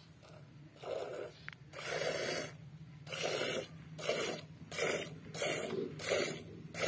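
Hand-milking: milk squirting in short hissing spurts into a galvanised bucket of frothy milk, about eight squirts at a steady pace, one with each squeeze of the teat.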